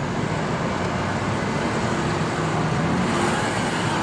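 Steady car cabin noise from a car driving slowly: engine and tyre noise with a low hum, heard from inside the car.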